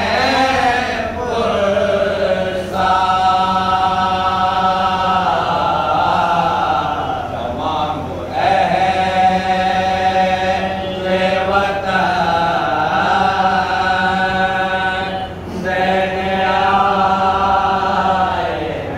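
A man chanting a Shia ziyarat recitation in long, held melodic phrases, with other men's voices joining in as a chorus. The phrases break off briefly about 3, 8 and 15 seconds in.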